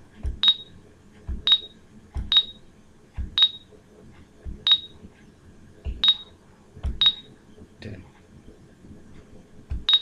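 A computer mouse button clicked repeatedly, about once a second, nine times in all. Each click is a soft low thump followed by a sharp tick with a short high ring.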